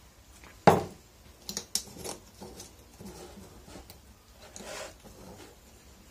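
Ceramic salt pot set down on a stone countertop with a sharp knock, followed by light clinks of a spoon against the pot and a short gritty scrape a few seconds later as salt is scooped.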